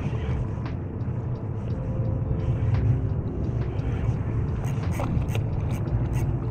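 Wind buffeting the camera microphone with a steady low rumble, with wind-ruffled water around a wading angler. A few light clicks come near the end.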